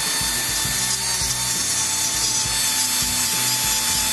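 Die grinder with a cut-off wheel running steadily under load, grinding flats onto a broken-off steel bolt stub seized in an aluminium engine cylinder: a steady high whine over a grinding hiss.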